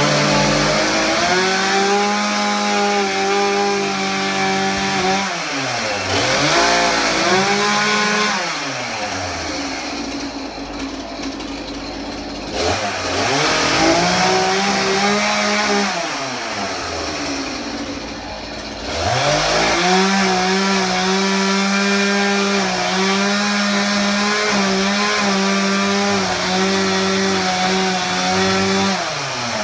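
Chainsaw held at high revs as it cuts through a couch's frame and upholstery, in long stretches of several seconds. Twice it drops back to a lower idle for a few seconds before revving up again, and it winds down near the end.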